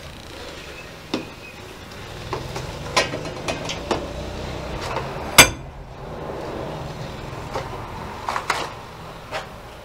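Metal clicks and knocks from a lever-operated bench press being worked to force a used diesel oil filter apart, with one sharp loud bang about five and a half seconds in, over a steady low hum.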